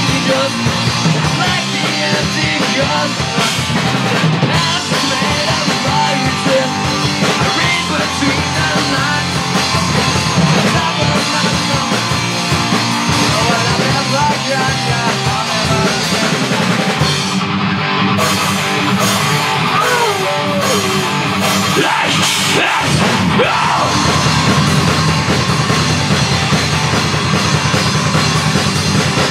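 A live rock band playing loud: electric guitar, bass guitar and a drum kit, with a vocalist singing into the microphone.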